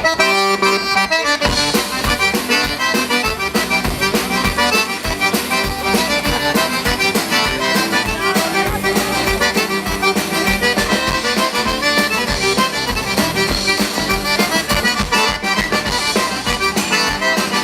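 A band playing Louisiana French dance music, accordion leading over a steady beat.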